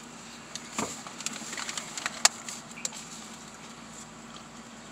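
Light clicks and knocks of a plastic drink cup and food containers being handled, one sharp click about two seconds in, over a steady low hum inside a car.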